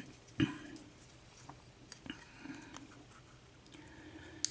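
Faint, scattered clicks and taps of small metal lock parts and tools being handled while a Schlage pin-tumbler cylinder is taken apart to reach its top pins, with a sharper knock about half a second in and a brief click at the end.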